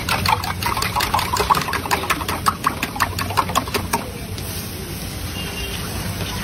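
Rapid metallic clinking and clattering at a kothu parotta griddle, several strikes a second, stopping about four seconds in. A steady low hum runs underneath throughout.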